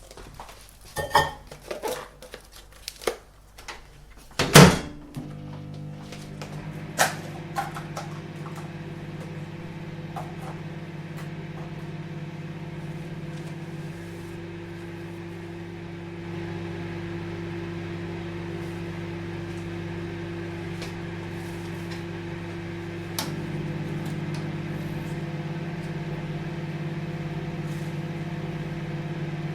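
Microwave oven being loaded and started: a few clicks and knocks, the door shut with a loud clack about four and a half seconds in, then the oven running with a steady hum that steps up slightly in level twice.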